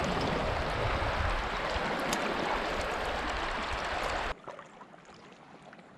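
Creek water rushing steadily; about four seconds in it cuts off abruptly to a much fainter background.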